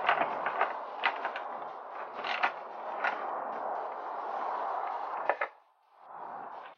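Irregular clicks and knocks of parts and tools being handled during motorcycle work, over a steady noise. The sound cuts off abruptly about five and a half seconds in, then a brief quieter stretch of noise.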